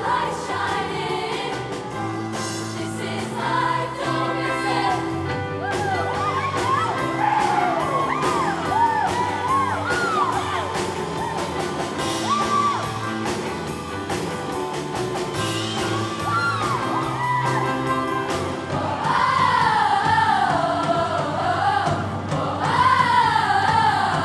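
Middle school show choir singing over a band accompaniment with a steady beat. Short whoops rise and fall over the music in the middle stretch, and the choir's voices swell louder near the end.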